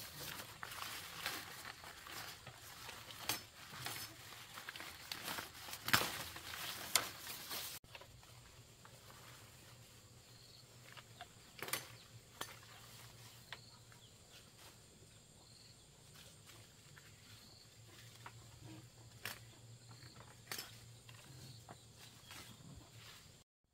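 Close rustling of leaves and snapping of stems as leaves are picked by hand from a leafy vine, with many sharp clicks. About eight seconds in it turns quieter, with occasional rustles and faint short high chirps repeating every second or two.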